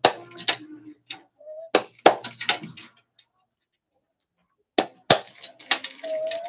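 Something rubbed and knocked against a hand-punched sheet-metal grater on a wooden board, heard as a string of short, sharp clicks and scrapes. They stop for a second or two in the middle, then start again.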